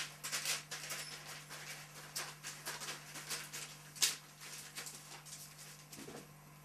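A small pet moving about on newspapers spread on the floor: a run of paper rustles and crinkles, loudest about four seconds in.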